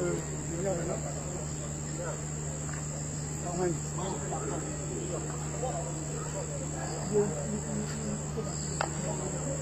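Crickets trilling steadily at a high pitch, over a steady low hum, with distant, indistinct voices of a group of people.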